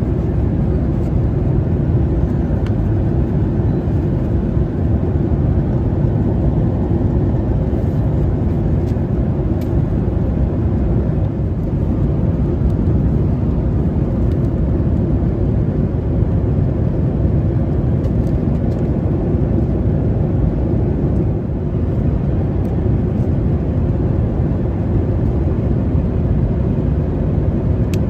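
Steady low rushing noise inside the economy cabin of a Boeing 737-900ER, with a few faint rustles of paper cards being handled.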